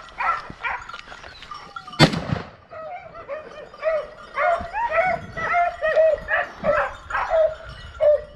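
A pack of hunting dogs baying hard, many overlapping barks several times a second: the ladra that means the pack is on a wild boar and pushing it. About two seconds in comes a single loud gunshot that echoes briefly.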